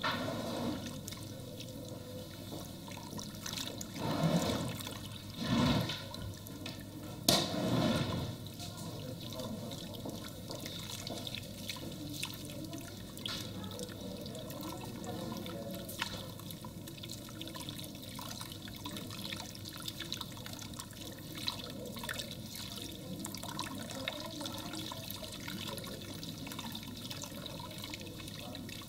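Water from a handheld sink sprayer running steadily over a head and splashing into a salon basin while the hair is rinsed. A few louder surges of splashing come about four to eight seconds in.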